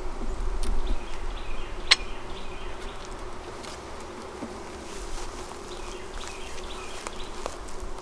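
Honeybees humming steadily in an opened hive as a frame is pried loose with a metal hive tool and lifted out, with one sharp crack about two seconds in as the tool levers the frame free and a few lighter wooden clicks.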